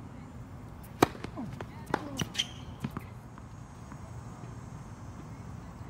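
Tennis ball bounced on a hard court before a serve: one sharp bounce about a second in, then several lighter knocks over the next two seconds.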